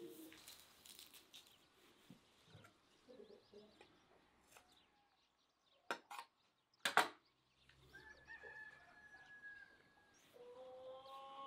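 A rooster crowing in the background, one long call with several pitches starting about ten seconds in. Earlier there are two sharp clicks of a small knife on a garlic clove as it is peeled.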